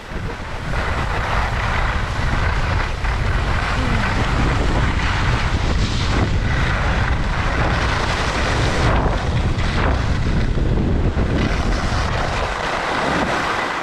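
Wind buffeting the GoPro's microphone during a fast downhill run, over the steady scraping hiss of a snowboard sliding on groomed snow. It eases a little near the end as the rider slows.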